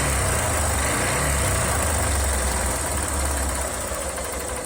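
2007 Honda Titan 150's single-cylinder four-stroke engine running with a knock, louder for the first few seconds and easing a little near the end. The owner takes the knock for a worn piston pin and a probably damaged connecting rod.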